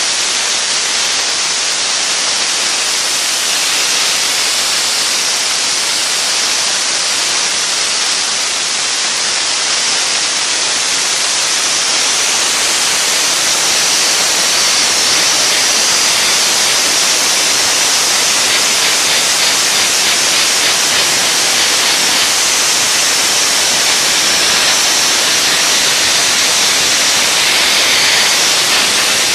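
Dry ice blaster nozzle blasting: a loud, steady hiss of compressed air and dry ice pellets striking a lacquered metal part. It is stripping grease and grime while leaving the finish intact.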